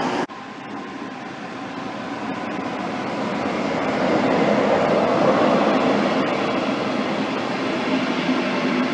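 Train running: a steady noise that starts abruptly, grows louder over the first four seconds or so, then holds steady.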